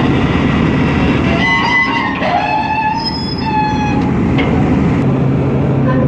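Background music with a plucked-string melody of short held notes, over a dense low rumble.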